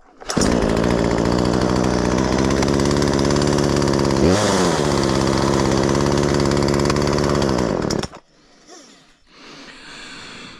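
Craftsman 36cc Poulan-built two-stroke chainsaw revving hard with no load. It comes in suddenly, holds a steady high pitch for about eight seconds with one brief rise and fall in pitch about four seconds in, then cuts off abruptly.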